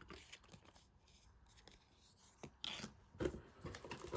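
Faint handling noises of small craft-box items, a stitch marker on its paper card and packaging: soft rustles and light clicks, growing louder and more frequent in the last second and a half.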